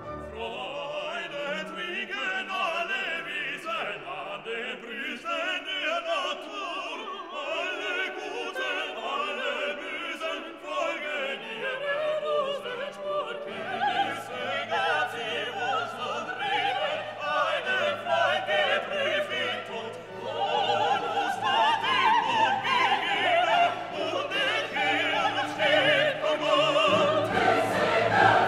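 Classical orchestral music with operatic singing and vibrato, growing a little louder in the second half.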